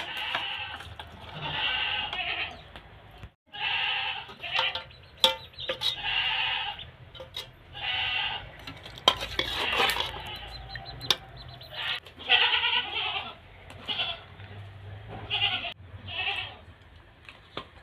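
A goat bleating again and again, short quavering calls a second or so apart, with a metal ladle clinking against steel cooking pots.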